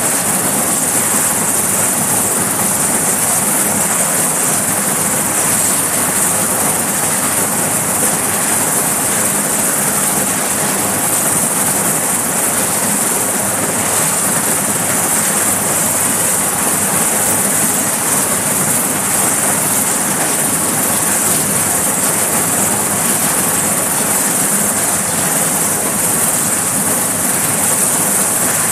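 Sikorsky S-61 helicopter running on the deck with its rotors turning: its twin turboshaft engines and rotors make a loud, steady, high-pitched rush that never lets up.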